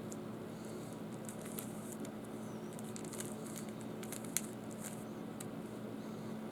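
Light plastic clicks and rattles of a Rubik's Cube being twisted, busiest in the middle, with one sharper click about four seconds in, over a steady low hum.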